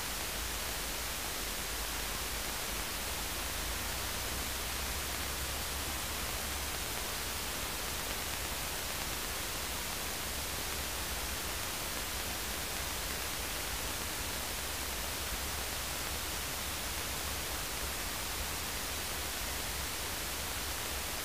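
Steady static hiss of a quiet electronic audio line, with a faint low hum underneath; no voices or distinct engine sound come through.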